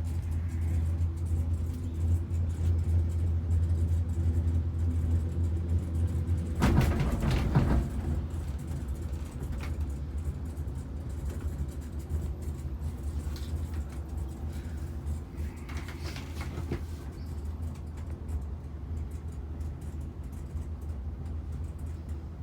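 Steady low hum and rumble of a cable car gondola riding along its cable, heard inside the cabin. About six and a half seconds in, a louder rattling rumble lasts about a second and a half, and after it the low hum runs quieter.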